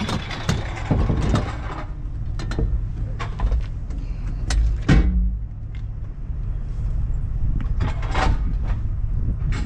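Tow truck's engine running in a steady low rumble while its wheel-lift is worked under a car, with sharp metal clanks and knocks throughout, the loudest about five seconds in.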